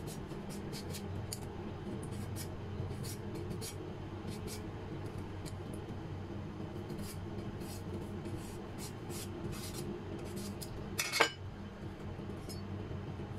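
A kitchen knife peeling the skin off a green mango: short scraping strokes at an irregular pace, with one sharper knock about eleven seconds in, over a steady low hum.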